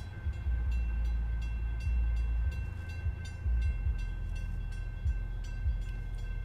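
Freight train cars rolling past, with a heavy low rumble and a regular clicking of wheels over the rail joints, and a steady high-pitched tone held over it.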